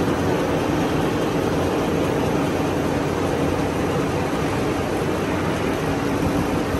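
High-speed twin-knife paper sheeter running: a loud, steady, even mechanical whir.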